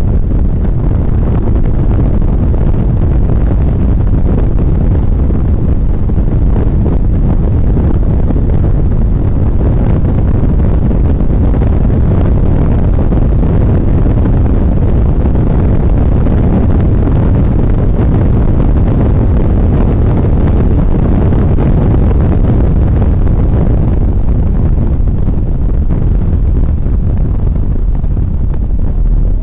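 Cabin sound of a mid-engined NSX V6 sports car at track speed: a loud, steady mix of engine, road and wind noise, with wind noise on the microphone.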